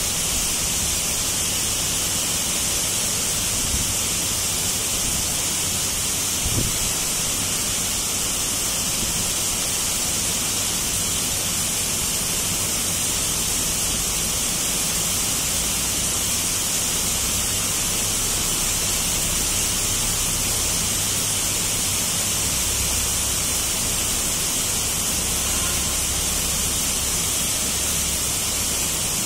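Heavy tropical downpour falling on a lawn and trees, a steady even hiss that holds at the same strength throughout.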